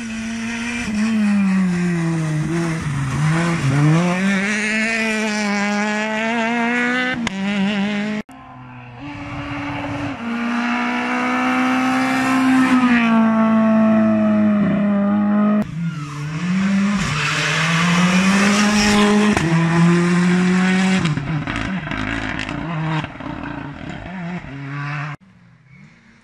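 Rally cars passing under hard acceleration, their engines revving up and dropping back repeatedly through gear changes and corners. There are three separate passes, each cut off suddenly.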